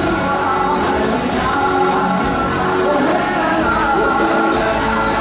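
Two male singers performing a rock song live, accompanied by acoustic and electric guitars.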